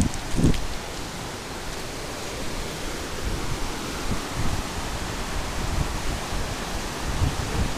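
Fast mountain river rushing over rocks: a steady, even sound of churning water. A couple of low thumps come right at the start.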